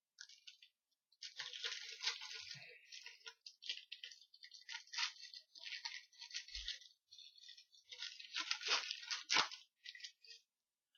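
A pack of football trading cards being torn open, its wrapper crinkling and the cards rustling against each other in irregular spurts, with a few light knocks.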